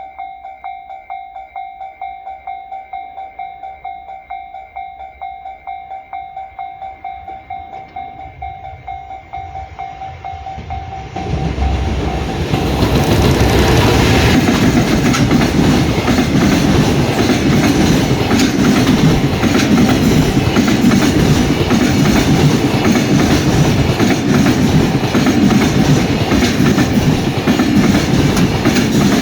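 Level-crossing alarm bell ringing in a quick, even rhythm. About eleven seconds in, a freight train arrives and runs past loudly, its wheels clicking over the rail joints and drowning out the bell.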